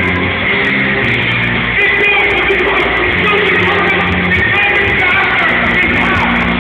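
Loud rock music with a singer, played over a sound system, with held bass notes underneath.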